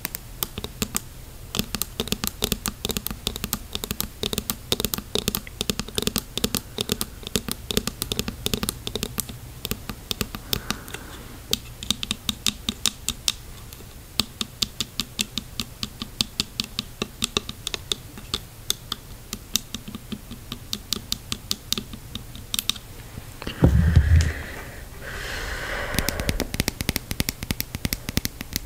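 Long fingernails tapping rapidly on a clear plastic snorkel tube and a diving mask: quick, light clicks, many a second. About three-quarters of the way in there is a short, loud low thump, followed by a few seconds of rubbing against the plastic.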